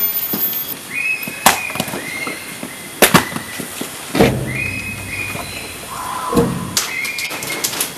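Pieces of fruit knocking and thudding onto a concrete enclosure floor as they are dropped and tossed down, about four separate impacts. Short, high, steady whistles sound in between.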